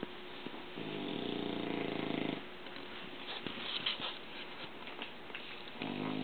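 English bulldog snoring: two buzzing snores on the in-breath, about five seconds apart, with a softer, crackly breath out between them.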